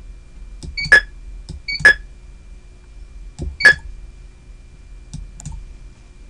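Three short electronic key-press beeps from an operator-panel keypad as the digits 8 and 5 and then Enter are pressed: two about a second apart, the third nearly two seconds later. Each beep follows a soft mouse click, and a couple more clicks come near the end.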